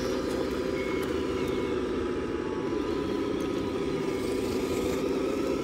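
Tamiya Scania 770S RC model truck running with a steady engine drone. Two short high beeps sound about a second in.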